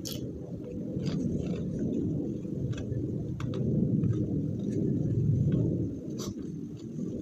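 Close-miked chewing of crunchy food, with a crisp crunch about five times over a low, steady rumble of mouth noise.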